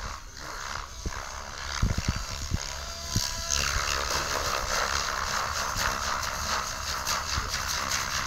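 Radio-controlled 3D helicopter flying aerobatics, its rotor blades whooshing and chopping, growing louder about three and a half seconds in. Wind rumbles on the microphone, with a few knocks around two seconds in.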